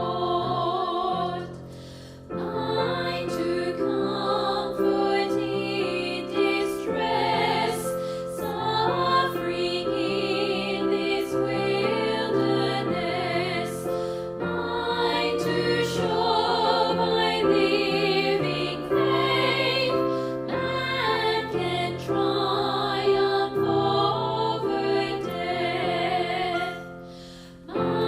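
Slow music with long held notes and vibrato, dipping briefly about two seconds in and again just before the end.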